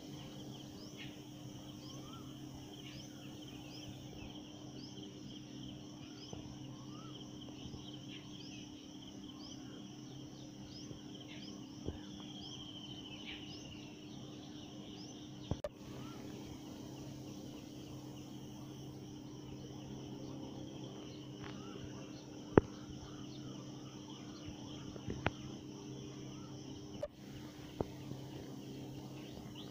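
Outdoor ambience: many short chirps from small birds over a steady low hum, broken by a few sharp clicks, the loudest about three-quarters of the way through.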